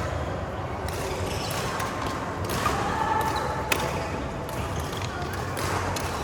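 Badminton rally in a large hall: several sharp racket strikes on the shuttlecock, roughly a second apart, the loudest a little past halfway, with players' voices over a steady low hum.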